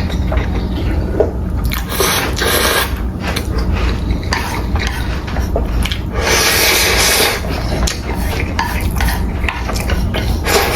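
Close-miked mukbang eating sounds: wet chewing and slurping of jjapaghetti noodles in irregular bursts, with a longer slurp about six seconds in, over a steady low hum.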